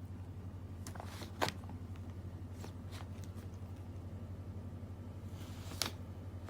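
Paper documents rustling and crinkling in a few short, scattered bursts as a cat paws at them, the loudest about one and a half seconds in and another near the end, over a steady low hum.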